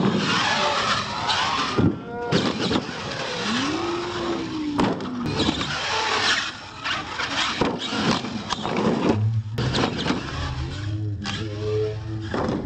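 Radio-controlled monster truck's electric motor whining, its pitch sweeping up and down with the throttle, with sharp knocks as the truck lands and tumbles, and crowd voices behind.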